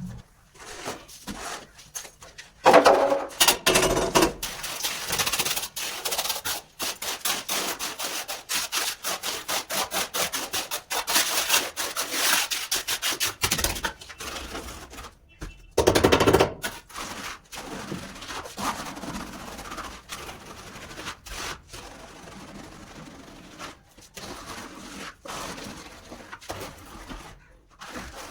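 Rapid, repeated rasping and scraping strokes of a hand tool working on concrete or mortar, with louder scrapes about three seconds in and again near sixteen seconds.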